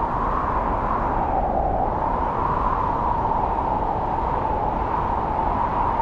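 Strong wind blowing through a snowy forest: a steady rushing noise with a low rumble, and a hollow whooshing tone that rises and falls slightly in pitch as the gusts swell and ease.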